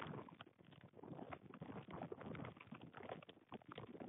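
Hailstones striking the nest and the camera's microphone: a dense, irregular patter of small ticks that eases briefly twice.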